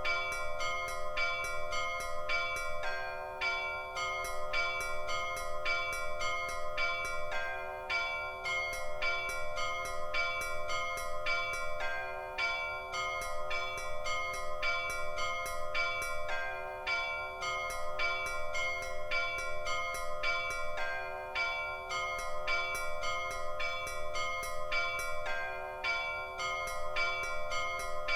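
Russian Orthodox church bells ringing a peal (zvon): small bells struck in quick, evenly repeating strokes over the sustained ringing of larger bells, with a lower bell sounding in a steady beat beneath, the pattern repeating without change.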